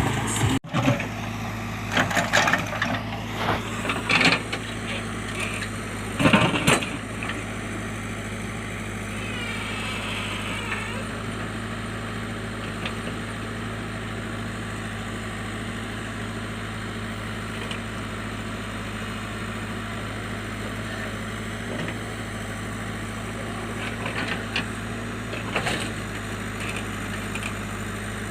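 JCB backhoe loader's diesel engine running steadily. Clanks and scrapes of the bucket working against rocks and soil come in the first several seconds and again near the end.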